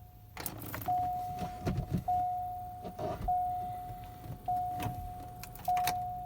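A car's warning chime dinging over and over, one clear tone repeating about every 1.2 seconds, in a car that won't start. Sharp clicks and a short rattle of keys come between the dings, mostly in the first half.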